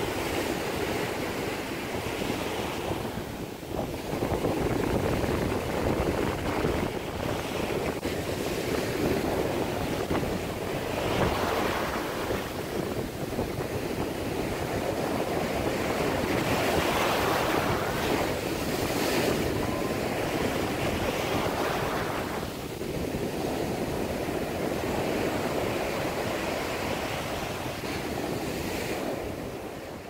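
North Sea surf on a rising tide: powerful waves breaking and foaming up the sand beach, swelling and easing every few seconds. Wind buffets the microphone.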